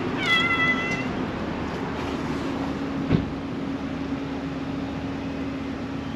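A domestic cat gives one short meow, steady in pitch, just after the start. About three seconds in there is a single sharp click, over a steady low hum.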